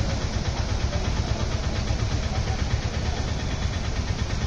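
A motor vehicle engine running steadily, with a low rumble under general traffic noise on a flooded, rain-soaked street.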